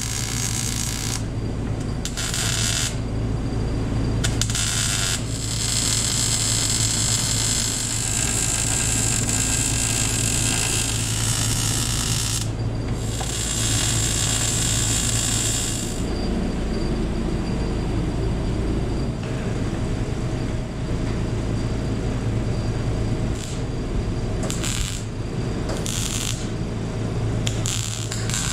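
MIG welding on steel: the arc crackles and sizzles in stop-start bursts, from short tacks to beads several seconds long, with a steady low hum underneath. The bursts are longest in the first half and shorter and sparser after that.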